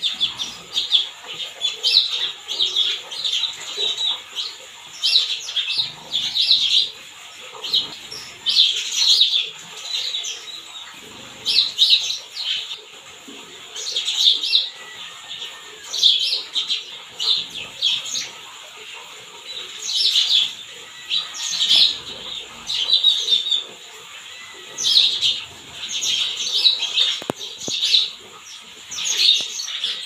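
A small flock of house sparrows chirping while feeding, short high chirps coming in quick clusters every second or two.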